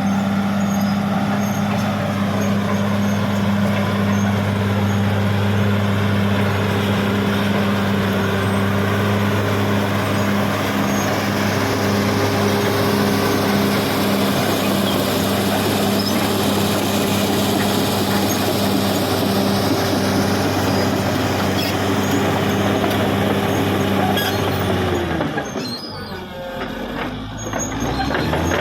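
Caterpillar D6R XL bulldozer's diesel engine running steadily as the dozer works. About three seconds before the end its pitch drops and it goes quieter for a few seconds, then it picks back up.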